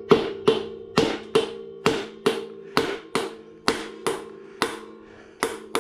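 Hammer blows on the pinion of a Ford 8.8 rear axle, driving the pinion gear out of the differential housing: a steady series of sharp metallic strikes, about two a second, with a steady ringing tone underneath.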